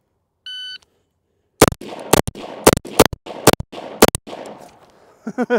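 A shot timer beeps once. About a second later a rifle fires six shots roughly half a second apart, the last coming about 3.6 seconds after the beep.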